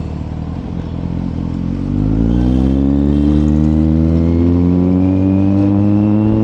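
Kawasaki Z900's inline-four engine running under the rider, its note lower and steadier at first, then rising steadily in pitch as the bike accelerates through a gear from about two seconds in.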